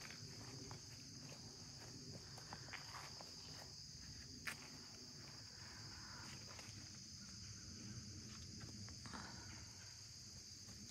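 Steady, high-pitched chorus of insects in the woods, with faint scattered footsteps on a gravel trail and one sharper click about four and a half seconds in.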